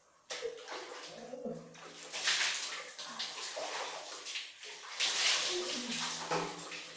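Water splashing and pouring over a person onto a tiled bathroom floor, in two main surges about two and five seconds in.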